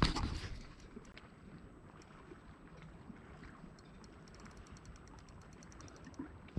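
Sea water sloshing against a concrete quay wall, with a louder slosh right at the start that dies away within about half a second, then a steady low wash. Faint quick ticks come through over the last couple of seconds.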